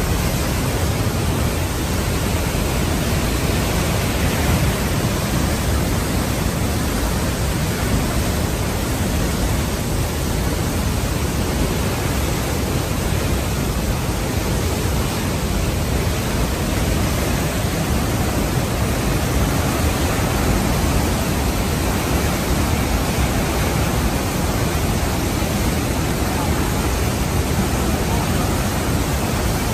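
Murchison Falls, where the Nile plunges through a narrow rock gorge: a loud, steady rush of falling water, with no breaks.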